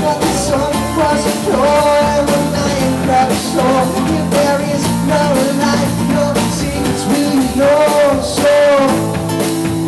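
Live acoustic rock song: a strummed guitar with a man singing at the microphone.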